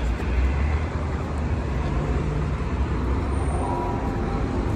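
Steady low rumble of road traffic, with no chopping strokes.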